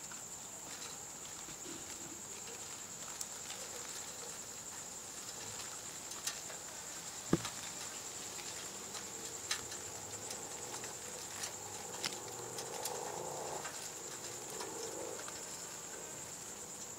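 Night insects calling in a steady, high-pitched, continuous trill, with a few sharp clicks and taps scattered through, the loudest about seven seconds in.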